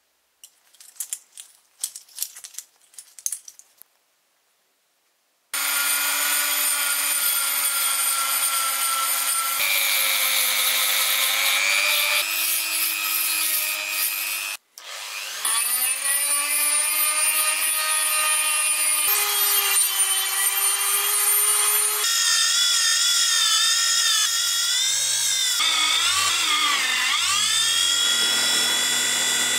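A few seconds of hand scraping, then a small electric power tool whining steadily, its pitch sagging and recovering as it bears on the work. It stops briefly about halfway through and changes pitch abruptly several times, as if spliced from separate passes.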